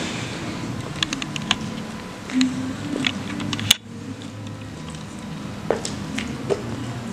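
Indoor gym room tone: a steady low hum with scattered light taps and clicks. About halfway through, a sharp click comes and the background drops abruptly, as at an edit cut.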